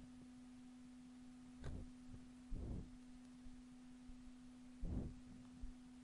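Faint background hum: a steady low tone, broken by a few soft low thumps, the first with a small click.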